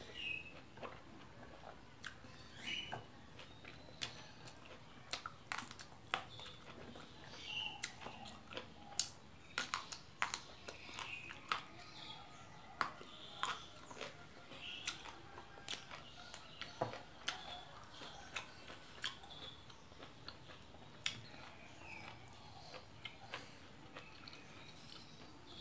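A person eating by hand, chewing and biting food that includes raw leunca berries, with many irregular sharp crunches and mouth smacks.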